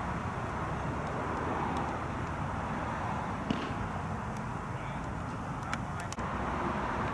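Steady outdoor background noise, a low rumble with hiss over it, and a few faint sharp clicks about six seconds in.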